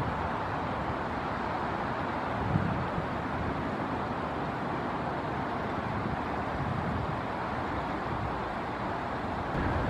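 Steady outdoor rushing noise with no clear tones, with one brief low thump about two and a half seconds in.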